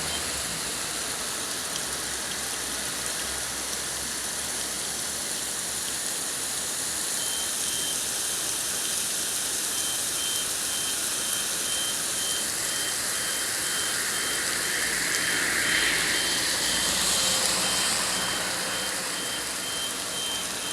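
Heavy rain falling steadily, with a rapid high-pitched beeping like a vehicle's reversing alarm starting about a third of the way in and continuing. A vehicle swells past, louder, about three-quarters of the way through.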